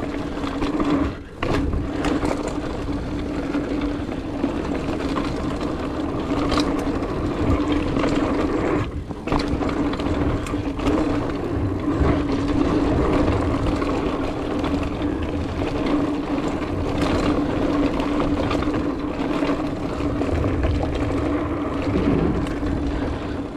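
A 2019 Trek Roscoe 8 hardtail mountain bike rolling fast down a dirt singletrack. It makes a steady whirring hum with a constant low rumble of wind on a chest-mounted camera, and scattered knocks and rattles as it goes over roots and bumps.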